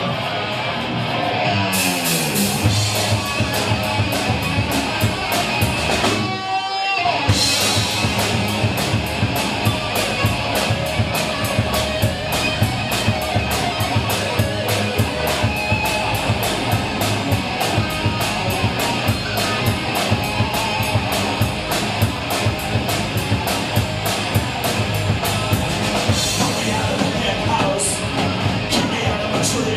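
Rock band playing a song: guitar and drum kit, with a short break about six seconds in before a steady, fast beat picks up.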